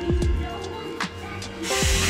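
Background music with a steady beat. Near the end a cordless drill starts up and runs, its whine falling in pitch as the bit bites into the cabinet panel.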